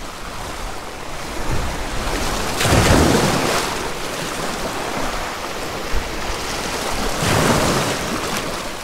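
Sea surf washing and splashing through the gaps between granite jetty boulders close by, a steady rush with two louder surges about four and a half seconds apart.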